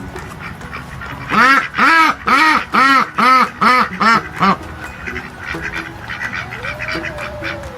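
Duck quacking: a quick run of about eight loud quacks, roughly two or three a second, then quieter.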